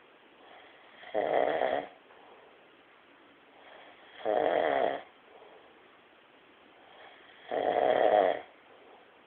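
Loud, rhythmic snoring: three snores, each just under a second long, about every three seconds, with quieter breaths between.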